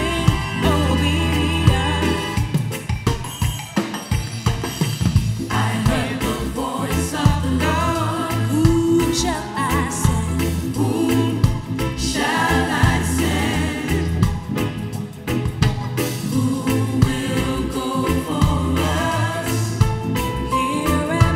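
Live gospel music: a woman sings lead into a microphone with a choir singing behind her, over a live band with held bass notes and drum hits.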